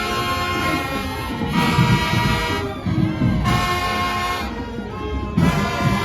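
High school marching band playing: the brass section holds loud chords in phrases of about a second, with short breaks between them, over steady drums.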